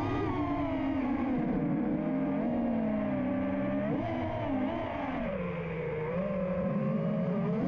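FPV freestyle quadcopter's Ethix Stout 2306 1750 kV brushless motors and propellers whining, the pitch swinging up and down with the throttle.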